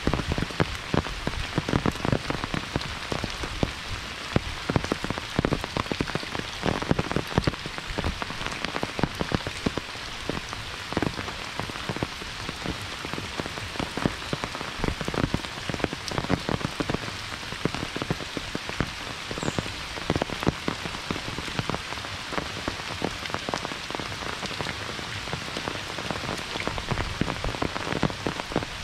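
Steady monsoon rain falling, with many close, sharp drop impacts.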